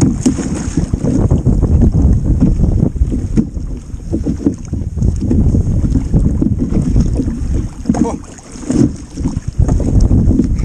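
Wind buffeting the microphone in a loud, gusty rumble, easing briefly about eight seconds in.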